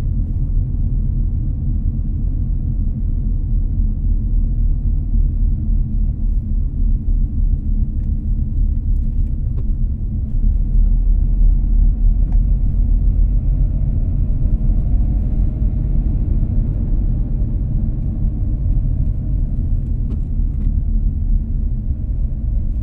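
Steady low rumble of engine and road noise inside the cabin of a moving car, a little louder about halfway through.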